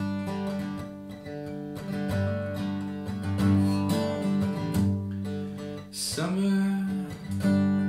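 Acoustic guitar played solo: strummed chords ring out in a steady, repeating pattern.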